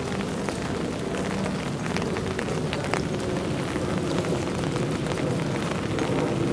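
Steady rain, with many separate drops ticking on hard surfaces over a low, even drone.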